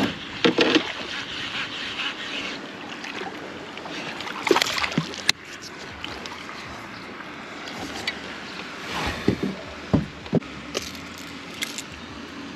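Handling noise of a baitcasting rod and reel and a hooked largemouth bass being brought into a plastic pedal boat: a string of sharp knocks and clicks over a steady rustle, the strongest about halfway through and again a few seconds before the end.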